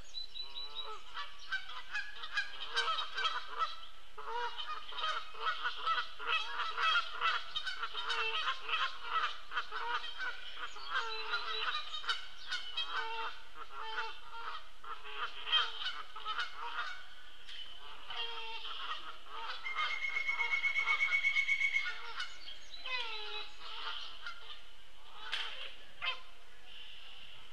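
Wild birds calling: many overlapping calls, with a fast, even trill lasting about two seconds near the two-thirds mark.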